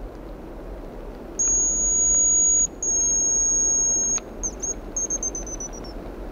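Hazel grouse decoy whistle blown in imitation of the bird's song: two long, high, steady whistles, then a short warble and a quick run of notes falling slightly in pitch.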